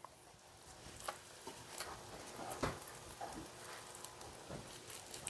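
Faint, scattered soft taps and squishes of gloved fingers and a knife working raw chicken breasts on a plastic cutting board, at uneven intervals, the loudest about halfway through.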